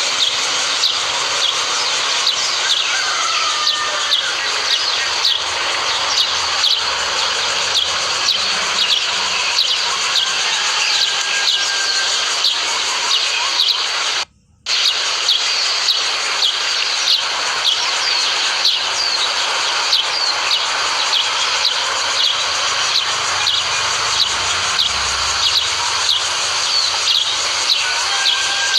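Small birds chirping continuously in rapid short falling notes over a steady high hiss, with a brief dropout about halfway through.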